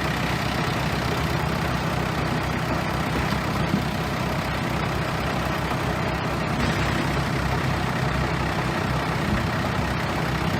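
Bulldozer's heavy diesel engine running steadily with a low, even drone.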